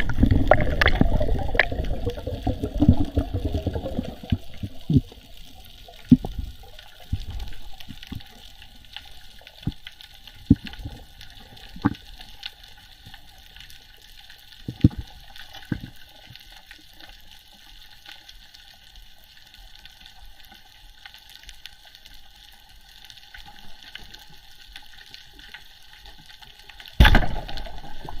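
Water moving around a diver's camera: loud sloshing and bubbling for the first few seconds, then a quieter steady hiss with scattered sharp clicks, and a loud rush of water noise near the end.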